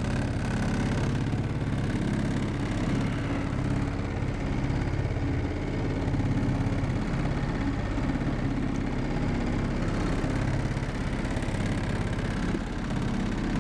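An engine running steadily at an even speed, a low, constant hum with no change in pitch.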